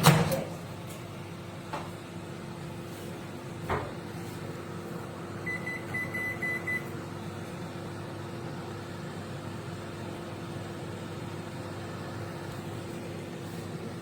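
Candy Smart CMG2071DS microwave oven: a loud thump at the start and two lighter clicks, then a quick run of short high beeps about five seconds in, and after that the oven running with a steady hum.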